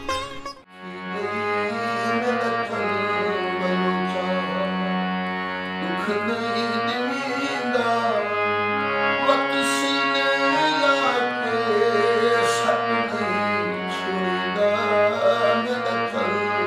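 Man singing a slow folk melody with long held notes that bend and ornament up and down, over a steady harmonium. It begins about a second in, after a brief drop.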